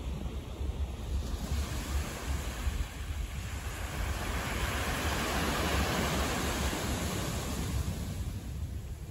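Wind buffeting the microphone as a steady low rumble, under a hiss that swells to a peak about midway and fades again.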